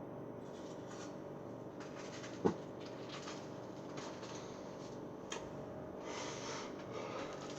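Light handling sounds of food and dishes: a single soft knock about two and a half seconds in, a sharp click a little after five seconds, and a brief rustle near the end, over a steady faint hum.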